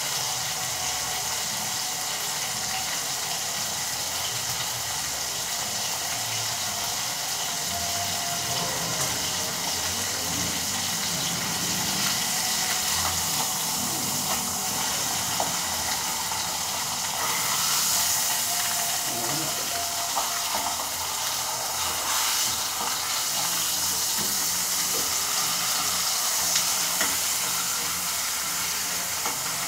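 Pork chops frying in oil in a skillet: a steady sizzle, with a few light clicks as a fork turns them.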